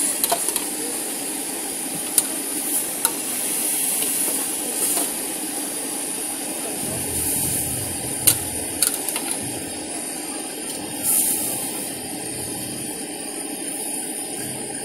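Noodles sizzling in a hot wok, a steady hiss, with the metal ladle and spatula clanking and scraping against the wok now and then.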